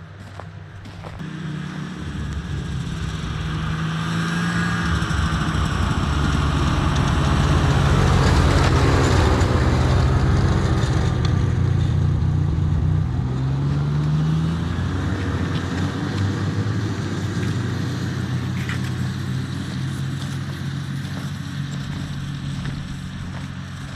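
Snowmobile engine passing by: it grows louder over the first several seconds, is loudest about a third of the way in, then slowly fades as it moves away.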